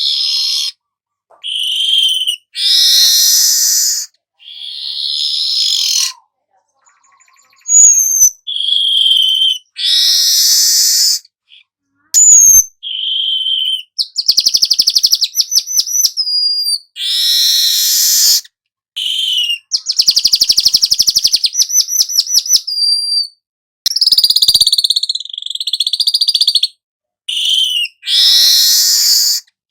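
Weaver bird (manyar kepala emas, golden-headed weaver) singing: bursts of buzzy chatter alternating with short whistles and fast rattling trills, broken by brief pauses.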